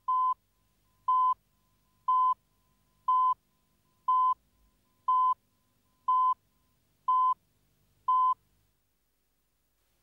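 Countdown leader beeps on a video tape: a short, steady, single-pitched beep once a second, nine in all, each about a quarter second long, counting down to the programme.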